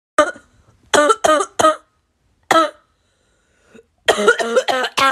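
A person coughing in short, comical coughs, each with a clear pitch to it: five separate coughs in the first three seconds, then a quick run of several close together about four seconds in.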